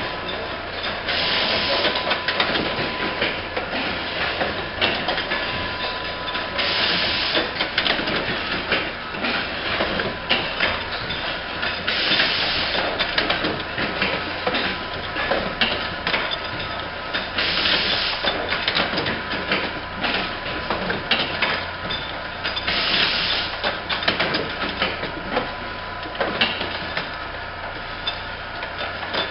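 Automatic insulin syringe assembly machine running: a continuous fast clicking and clattering of parts, with a burst of compressed-air hiss about every five and a half seconds as its pneumatic cylinders cycle.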